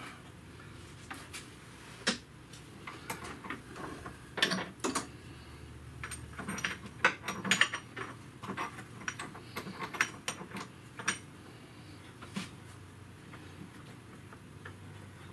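Irregular metallic clinks and knocks of hand tools and parts being handled during engine installation work. They come in a scattered run, densest in the middle, and a few of them ring briefly.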